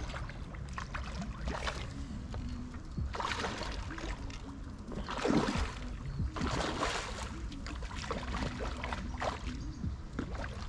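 Hooked carp thrashing at the water's surface close to the bank, making irregular splashes, several bursts a second or so apart, as it is played toward a landing net held in the water.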